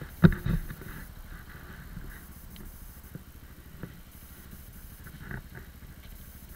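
Lexmoto ZSX-F motorcycle engine idling at a standstill, with two sharp knocks about a quarter and half a second in and a few faint clicks after.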